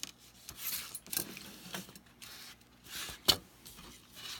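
PCIe M.2 carrier cards being handled and set down on a desk: scattered light rustles and clicks, with one sharp click a little over three seconds in.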